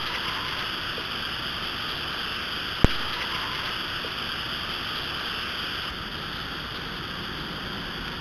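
Steady background hiss from a trail camera at night, with one sharp click about three seconds in.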